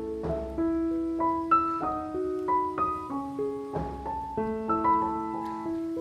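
Background piano music: a slow melody of single notes over held lower notes.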